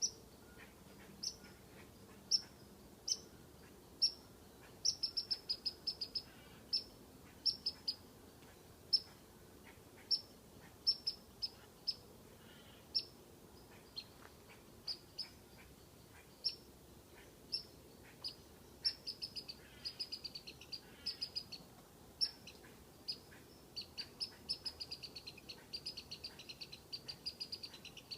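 Squirrel giving short, sharp, high whistling chirps, some single and some in quick runs of several, coming faster and nearly continuous toward the end: its alarm call at a cat.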